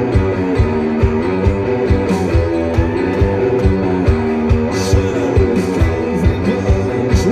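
Live rock band playing an instrumental passage: drums keep a steady beat under bass and guitars.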